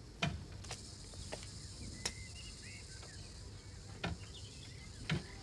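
Quiet outdoor background with a few faint short bird chirps and a handful of sharp taps at irregular intervals, the loudest about a quarter of a second in.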